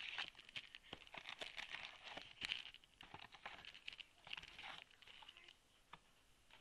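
Foil-wrapped Panini Gridiron Gear football card packs crinkling and tapping as they are taken out of their cardboard box and laid on a table: a dense run of rustles and small clicks that thins out after about five seconds.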